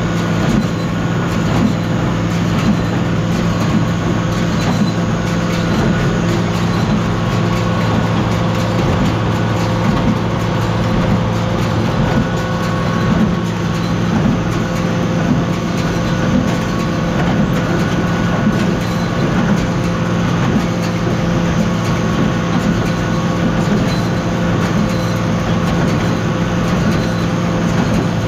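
Tractor engine running steadily under load, pulling a square baler that is working, with the baler's mechanism clattering over the engine.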